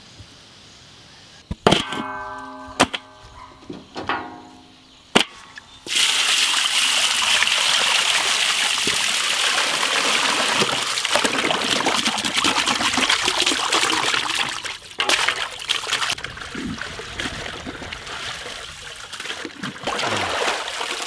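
A few sharp metal knocks, each ringing briefly, from a large aluminium pot. Then water is poured into the pot in a loud, steady stream for about nine seconds. Near the end this gives way to lighter sloshing and splashing as raw beef ribs are scrubbed by hand in the water.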